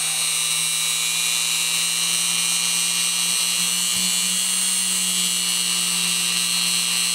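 Small electric drill running steadily at an even pitch, a 3 mm bit being pushed slowly through a rubber coating.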